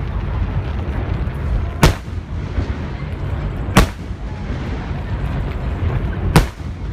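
Fireworks shells bursting overhead: three loud, sharp booms roughly two seconds apart over a steady low rumble.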